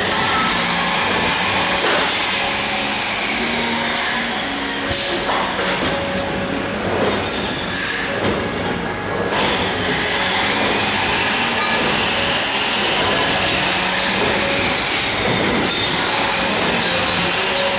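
Six-line plastic bag making machine running: a steady mechanical din of rollers and drives, with high whining tones that rise and fall and a few sharp clicks.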